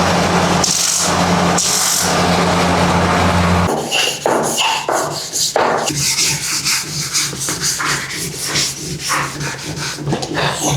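Cricket bat willow being sanded: a powered machine hums steadily with scraping strokes about once a second, then cuts off a little under four seconds in, and irregular hand rubbing and scraping strokes on the wood follow.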